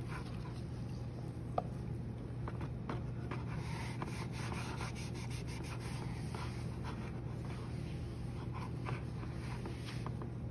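Clay slurry and scraps being scraped and wiped out of a pottery wheel's splash pan into a bucket: irregular rubbing and scraping with small knocks, over a low steady hum.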